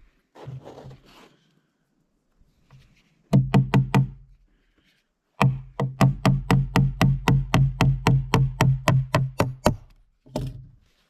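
Small multitool hammer driving a small nail into a 2x6 board. A few light taps start the nail, then comes a quick, even run of about twenty strikes, roughly four or five a second, and a last blow near the end.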